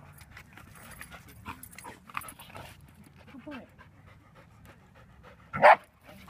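Dogs playing, with panting and scuffling, a few brief pitched whines, and one loud short sound about five and a half seconds in.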